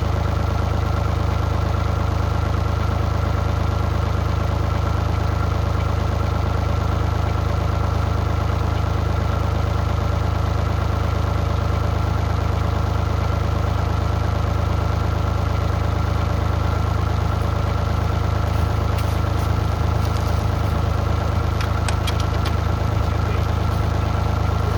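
Mini excavator's diesel engine idling steadily, warmed up, with a few light clicks in the last few seconds.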